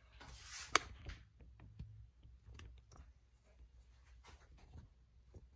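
Handling noise from a phone camera being picked up and repositioned: one sharp click about three quarters of a second in, then faint scattered taps and rubbing.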